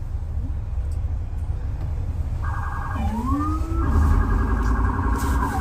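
Emergency vehicle siren starting a couple of seconds in, with a fast warbling tone and a rising wail, over a steady low rumble of city street traffic.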